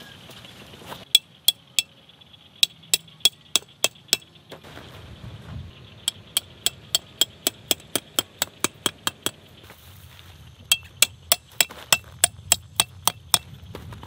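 A metal tent stake being hammered into the ground: sharp, ringing metallic strikes at about three a second, in four runs of several blows each with short pauses between.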